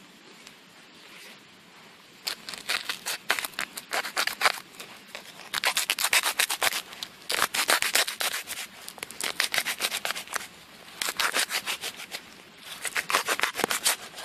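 Machete blade sawing back and forth through a soil-filled plastic bottle: a quick, rasping scrape of plastic, in several runs of rapid strokes with short pauses. It starts about two seconds in.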